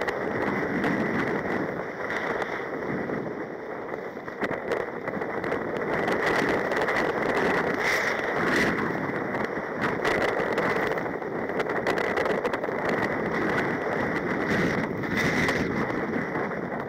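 Wind buffeting the microphone over rough, choppy sea around a sea kayak: a steady rushing noise with scattered short splashes and knocks as the boat and paddle work through the waves.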